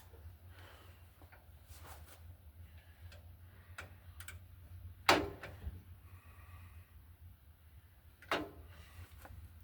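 Hand socket ratchet clicking in short strokes on a bolt, with two louder metal clunks about halfway through and near the end.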